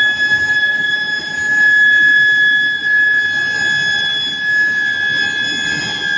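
Medium-frequency induction heating furnace running: a steady, high-pitched whine with fainter overtones above it, over a background of mechanical noise.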